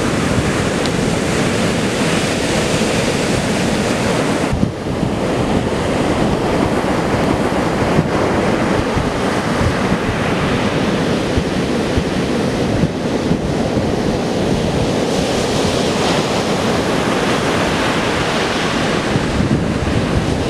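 Rough storm surf breaking and washing up a sandy beach, a dense steady rush of water with wind buffeting the microphone. The sound briefly dips about four and a half seconds in.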